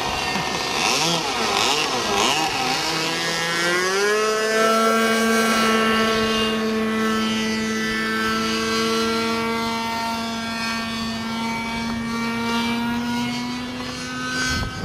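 Small engine of a radio-controlled model airplane running in flight. Its pitch wavers for the first few seconds, rises about four seconds in, then holds a steady high buzz until it cuts off at the end.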